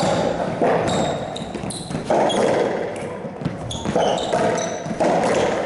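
Racquetball court: several sharp pops of the hollow rubber ball off racquets, walls and floor, ringing in the enclosed court, with short high squeaks of court shoes on the floor in between.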